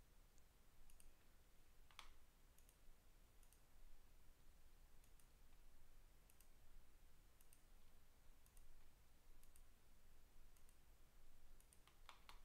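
Near silence: room tone with faint, scattered clicks from a computer mouse.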